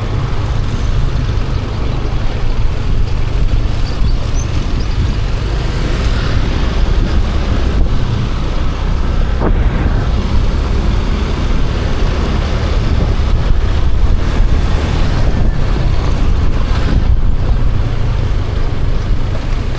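Steady road noise from a moving vehicle, with a heavy low rumble.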